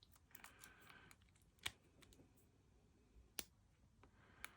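Faint, scattered small metal clicks of lock picking tools working in a cheap 40 mm laminated steel padlock, with two sharper clicks just under two seconds and about three and a half seconds in.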